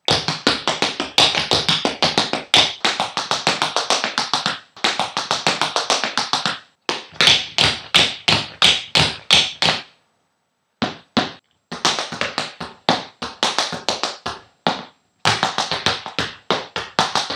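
Tap shoes striking a wooden floor in fast runs of crisp taps with no music, broken by short pauses. The longest pause comes about ten seconds in.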